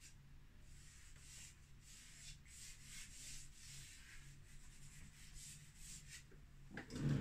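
Chalk pastel stick scratching and rubbing across a canvas in short repeated strokes, over a faint steady low hum. A short, louder dull thump comes near the end.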